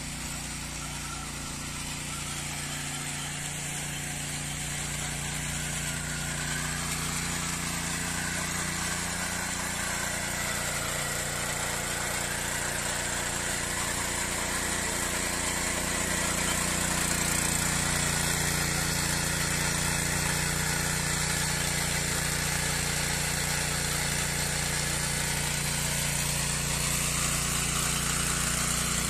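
Walk-behind rotary tiller's small engine running steadily under load as its tines churn through dry garden soil, growing gradually louder over the first half.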